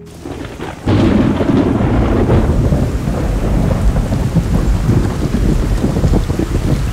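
Heavy rain pouring down, with thunder that breaks in suddenly about a second in and rumbles on under the downpour.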